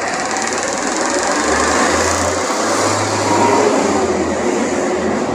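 Peterbilt garbage truck running close by: a loud, steady mechanical noise with a fast, even rattle.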